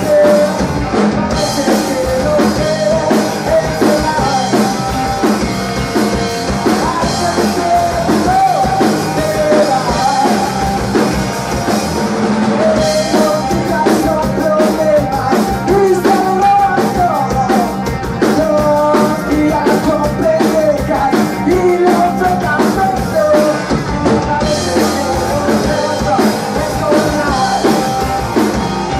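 Rock band playing loud and live, with electric guitar, bass guitar and drum kit, and a man singing over it.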